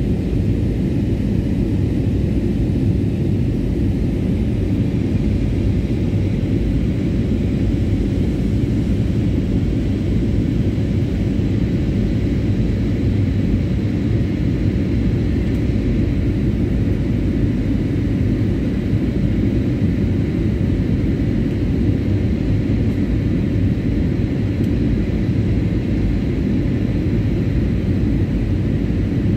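Steady cabin noise inside an Airbus A320-family jet airliner in flight: the engines and rushing air make a constant low rumble that does not change, with faint steady hum tones above it.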